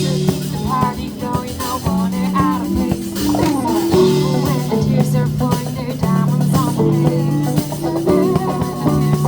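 Live band music: guitar, bass and drum kit playing with a singer's voice over them.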